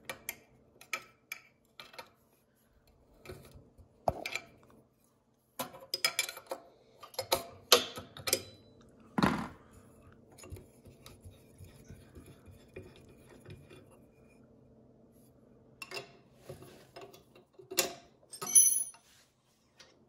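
Wrench and steel fittings clinking and knocking while the pressure gauge is loosened from an air compressor's pressure switch manifold: scattered sharp taps and clicks, with a bright metallic ring near the end.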